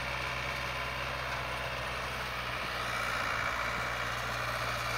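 Farm tractor engine running steadily while driving a PTO-powered reaper-binder that is cutting sesame.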